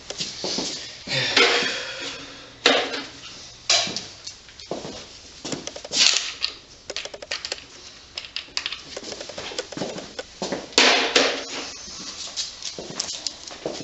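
Metal tools and engine parts clinking and clattering by hand, with irregular clicks, knocks and short scrapes.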